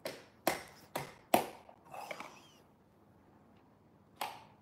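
Sharp knocks of small plastic dough tubs on a stone countertop: four in quick succession, then one more near the end.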